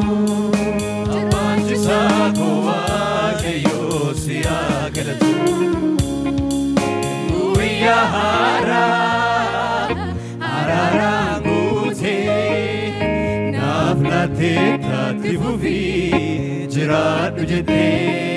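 A church worship team singing a gospel song in chorus, with a lead singer on microphone, over amplified instrumental backing with a steady beat.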